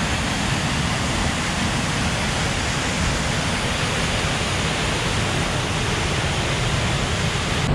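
Steady rush of a mountain waterfall and its fast-flowing stream, an even wash of water noise with no breaks.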